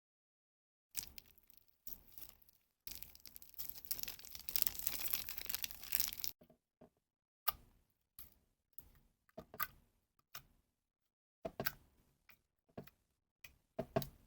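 Slime and plastic piping bags being handled, making a crinkling, crackling sound that is densest for a few seconds, then scattered separate sticky pops and clicks.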